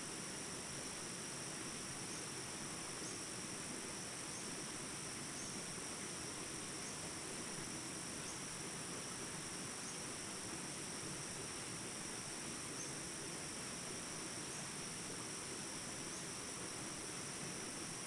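Jungle ambience recording: insects trilling steadily at a high pitch over the even rush of small river rapids, with a faint chirp recurring every second or so.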